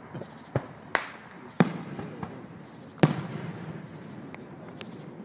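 Fireworks going off: a run of sharp, separate bangs, the loudest about one and a half and three seconds in, with fainter pops between them.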